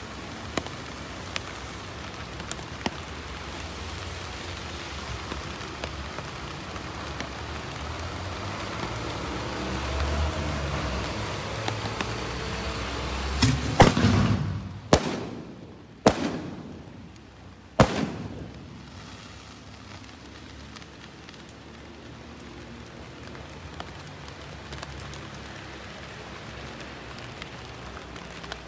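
Fireworks rockets going up with a rushing hiss that builds, then a string of sharp bangs about halfway in, roughly a second or two apart, the first the loudest.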